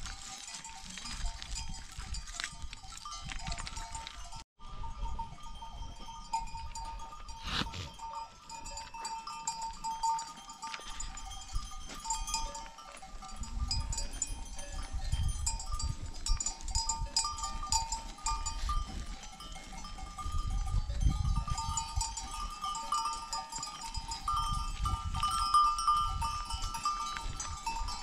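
Flock of sheep and goats with their bells: several small bells ringing steadily, with bursts of low rumbling noise in the second half.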